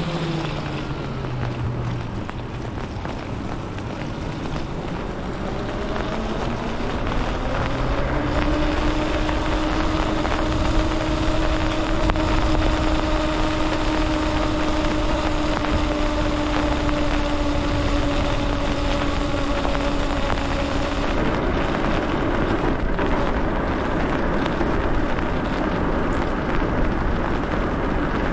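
Electric bike's drive motor whining in pitch with road speed: the whine falls as the bike slows in the first couple of seconds, climbs over the next several seconds as it speeds up, holds steady, then fades about three-quarters of the way through. Under it runs a steady rush of wind and tyres on wet pavement.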